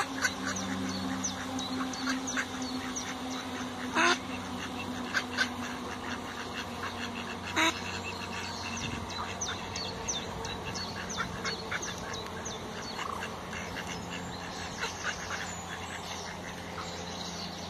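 Mallard ducks quacking, with two louder quacks about four and seven and a half seconds in, over a busy run of short clicking sounds. A steady low hum runs underneath.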